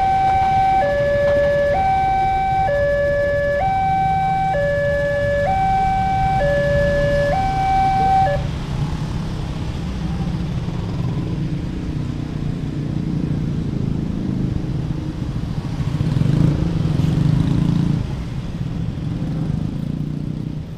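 Railway level-crossing warning siren sounding an electronic two-tone signal, high and low tones alternating about once a second, over the rumble of a passing passenger train. The siren cuts off about eight seconds in. Then a stream of motorcycles and cars crosses the tracks with their engines running.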